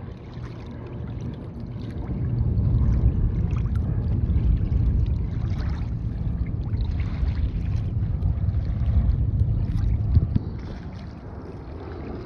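Wind rumbling on the microphone and water lapping around a kayak on open river water. The rumble grows stronger about two seconds in and drops back near the end.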